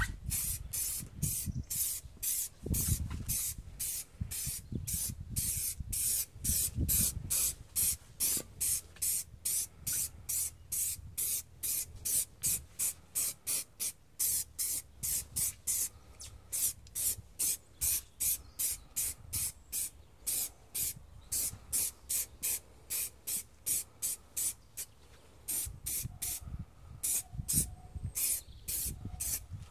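Aerosol can of clear lacquer spraying an alloy wheel in short, quick bursts, about two a second, laying down a light first coat.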